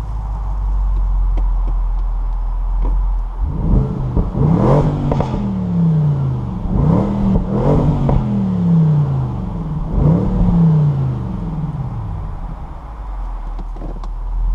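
Bentley Continental GTC V8 S's 4.0-litre twin-turbo V8 rumbling low, then revving three times about three seconds apart, each time rising quickly and sinking back slowly. Short crackles come from the exhaust around the peaks of the revs.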